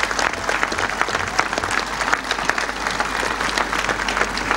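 A large outdoor crowd applauding, many hands clapping steadily.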